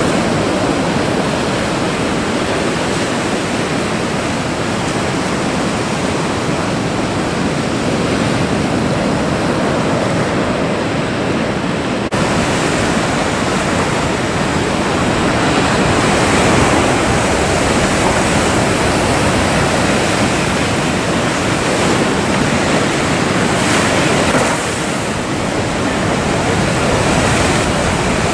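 Breaking ocean surf and rough sea water, a steady loud rush of waves. The sound changes in brightness about twelve seconds in.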